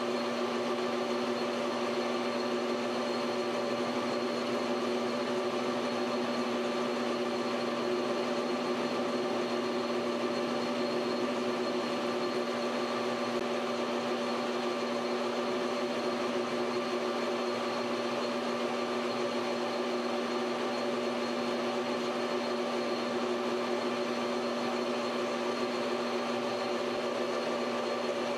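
Metal lathe running steadily while a tool turns a copper rod held in a collet chuck: an even machine hum with several fixed whining tones and no change in speed.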